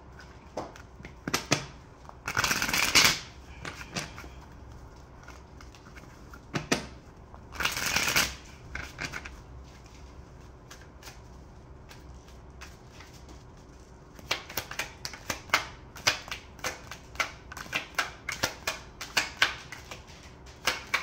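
A deck of cards being shuffled by hand, with two rustling bursts of about a second each, a couple of seconds in and again about eight seconds in. From about two-thirds of the way through, a quick run of sharp snaps and taps as cards are drawn off the deck and laid down on the table.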